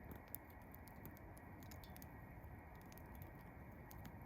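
Wood campfire crackling faintly, with scattered small sharp pops over a low steady background hiss.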